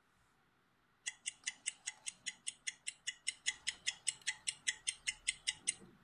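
INQ 1 slider phone playing a ringtone preview through its small speaker: a fast, even series of short high chirping beeps, about five a second, starting about a second in and growing a little louder before stopping just before the end.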